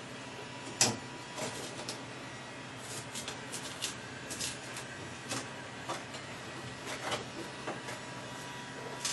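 Heat gun blowing steadily while chunks of old sound deadening material are cracked, pried and pulled off a car's sheet-metal floor pan, giving irregular clicks, crackles and scrapes, the sharpest about a second in.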